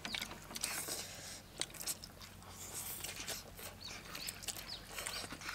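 Several people slurping noodles and chewing, with irregular wet sucking and smacking sounds.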